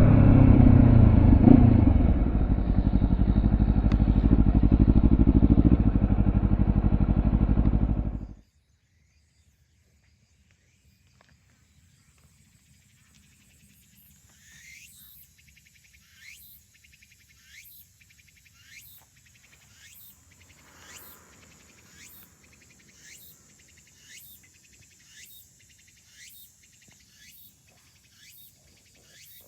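Honda CBR250RR parallel-twin engine through a WR'S SS-OVAL titanium slip-on silencer, dropping back from a rev and running at idle, then switched off about eight seconds in, the sound cutting off suddenly. Afterwards a faint falling chirp repeats about once every second and a bit.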